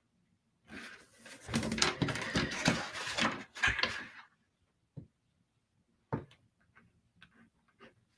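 A paper journal being slid and turned on a wooden table: a few seconds of scraping and paper rustling with some knocks. Then a couple of sharp clicks and light ticking as a fine-liner pen touches the paper.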